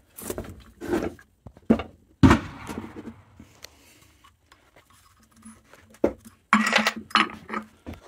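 Metal clinks, knocks and scrapes of a spanner and an e-bike hub motor being handled on a wooden workbench, with one louder knock about two seconds in and more clatter near the end.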